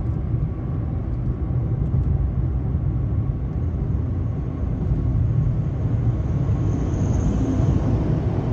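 Steady road noise heard inside a moving car's cabin: a low rumble of tyres and engine at freeway speed.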